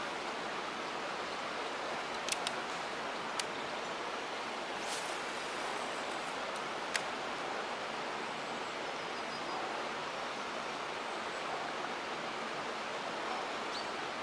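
Steady rush of running water, with a few sharp clicks: three between two and three and a half seconds in, and one about seven seconds in.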